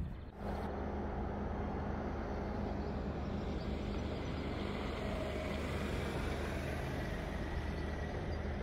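An engine running steadily: a constant low hum under a wash of noise.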